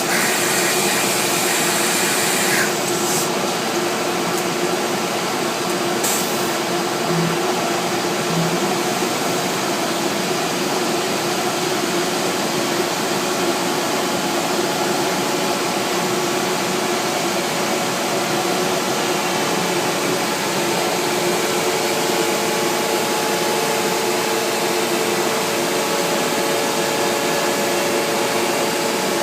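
CNC router machining MDF panels: a steady whirring noise with a few steady tones. A brighter hiss sits over it for the first two or three seconds and comes back briefly about six seconds in.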